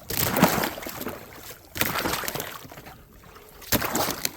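Three slow footsteps, each a short crunching rustle, about two seconds apart.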